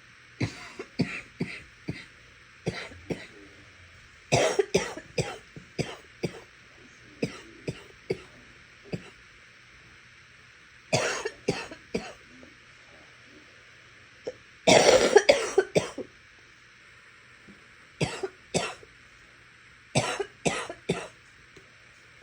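A person's wet, sick-sounding cough. It comes in repeated fits of short coughs separated by pauses, about eight bouts in all. The longest and loudest fit comes about two-thirds of the way through.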